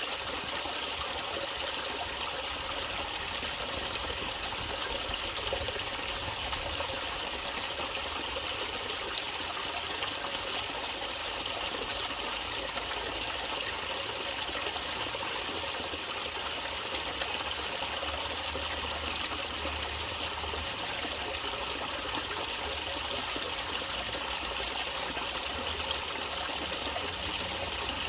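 Natural running water trickling and splashing steadily, an even unbroken flow.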